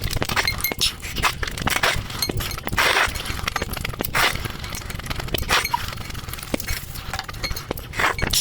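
Close-miked eating sounds of spicy noodles being eaten: slurping and chewing, with many small sharp mouth clicks and short noisy bursts.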